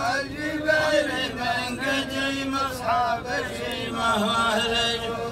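A line of men chanting a rajaz poetry verse in unison, several voices overlapping on long held notes that rise and fall in slow phrases.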